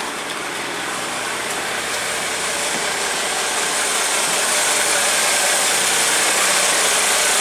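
Bus diesel engine running, with a steady mechanical clatter that grows gradually louder. It has just been restored after fuel-system and electrical faults that caused loss of prime and loss of crank.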